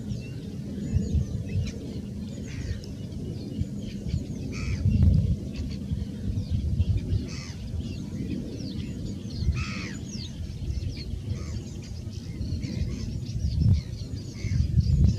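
Wild birds chirping and singing: many short high chirps and quick falling notes scattered throughout, over a low, uneven rumble.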